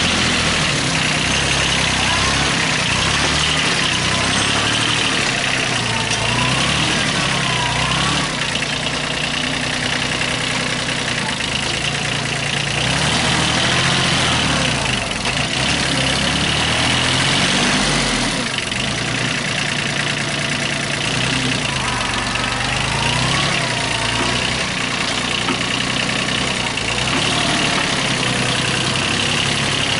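Kubota B8200 compact tractor's diesel engine running under load as its front loader pushes into a heap of soil, the revs rising and falling a little with the work.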